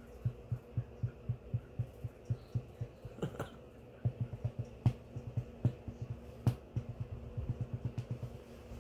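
Border Collie licking close to the phone: quick wet smacks and laps in a steady rhythm of about four a second.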